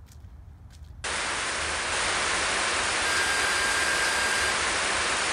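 Loud TV-static hiss that switches on abruptly about a second in, with a steady high beep for about a second and a half in the middle: a no-signal video-glitch sound effect.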